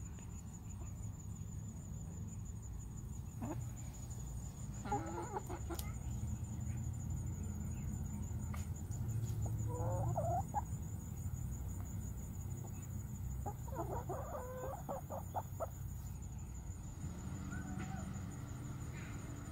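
Domestic hens clucking as they forage: scattered single clucks and short calls, with a quick run of clucks about three-quarters of the way through.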